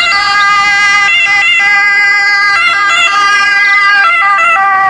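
Electronic ambulance siren sound, loud and steady, switching between a few pitches several times.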